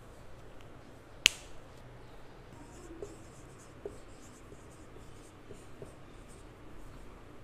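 Marker pen writing on a whiteboard: a run of short, faint squeaky strokes starting about two and a half seconds in, after a single sharp click about a second in.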